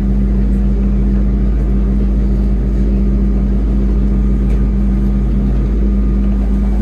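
A train running, heard from inside the carriage: a loud, steady low rumble with a constant motor hum. One lower hum tone drops out near the end.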